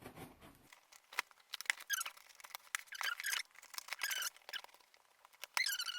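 Packaging squeaking as a box is handled and opened: a series of short, wavering squeaks about a second apart, with a few light clicks.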